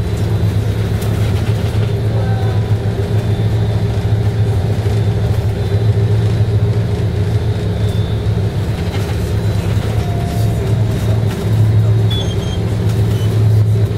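Tobu route bus heard from inside the passenger cabin: a steady low engine drone with road noise as the bus drives along.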